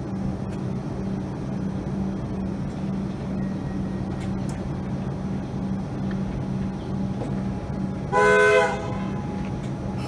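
Steady hum of an electric suburban train standing at the platform. About eight seconds in, a train horn gives one short blast of about half a second.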